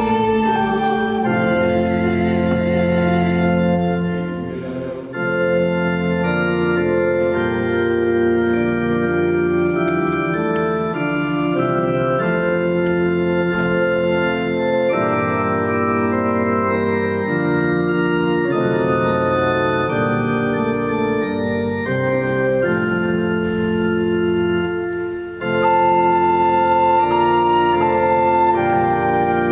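Hymn played on an electronic organ (Yamaha Clavinova on an organ voice) in sustained chords, with a recorder playing the melody above it. The music breaks off briefly about five seconds in, where one hymn ends and the next begins, and pauses again shortly before the end.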